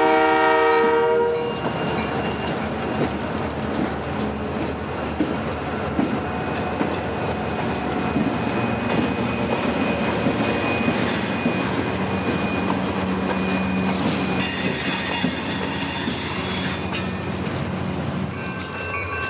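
Freight train horn sounding and cutting off about a second and a half in, then the train rolling past with wheels clicking over the rails and high wheel squeal now and then.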